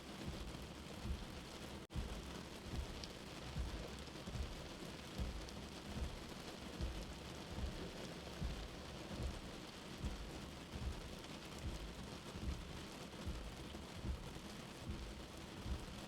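Steady rain with a soft, low heartbeat thumping about every 0.8 seconds underneath. The sound drops out for a split second about two seconds in.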